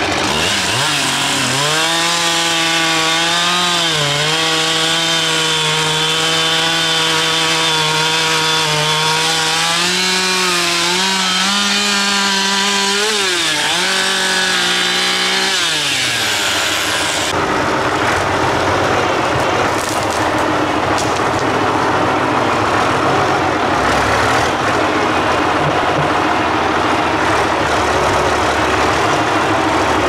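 Two-stroke chainsaw revving up and cross-cutting a felled log, its pitch sagging under load as it bites into the wood, then winding down. About 17 seconds in, the sound switches abruptly to the County 1124 tractor's diesel engine running steadily.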